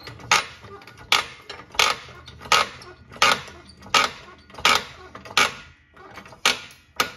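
Hydraulic floor jack being pumped, giving a sharp metallic clack on each handle stroke, about one every 0.7 seconds, as it lifts the rear trailing arm carrier bracket up into place.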